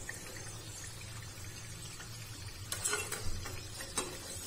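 Oil sizzling steadily in a steel pan as batter-coated potato pakoras fry on a low flame, with a few light metallic clinks of a slotted spoon against the pan a little under three seconds in.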